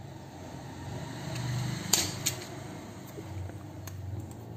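Fingernails picking and scratching at the plastic shrink wrap on a smartphone box, with two sharp crinkling clicks about two seconds in. A steady low hum runs underneath.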